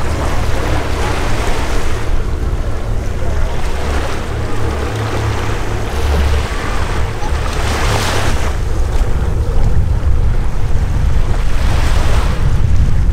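Wind rumbling hard on the microphone over the steady wash of surf, the hiss of the waves swelling twice, about eight and twelve seconds in.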